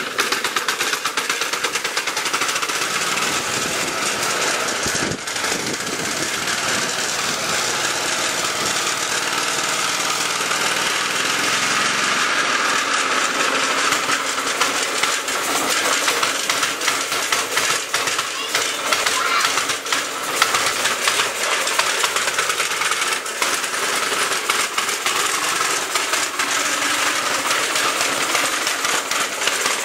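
Single-cylinder motor wheel engine of a 1920 Briggs & Stratton Flyer running, a fast, even train of exhaust pops that goes on steadily.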